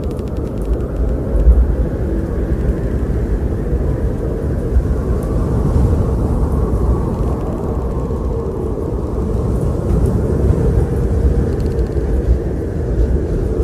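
Strong wind blowing with a deep rumble, a higher whistle swelling and fading in gusts through the middle.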